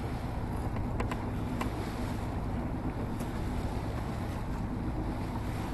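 Steady wind noise on the microphone and water rushing along the hull of a sailing yacht under way, with a few faint ticks in the first couple of seconds.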